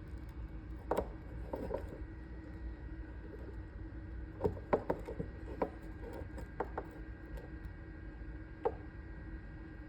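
Small clicks and taps of hand-work on a wire and crimp butt connector: the stripped wire being pushed in and the crimper handled, a scatter of sharp ticks with a cluster in the middle, over a steady low hum.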